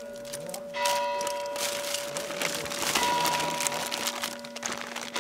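Bell-like ringing tones that hold steady, with a new tone struck about a second in and again about three seconds in. Under them, plastic bags and food wrappers rustle and crinkle as they are handled.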